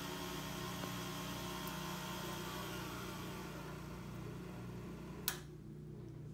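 Van de Graaff generator's motor and belt running with a steady whir. About five seconds in there is one sharp click as it is switched off at the control knob, after which the higher whir drops away and only a low hum remains.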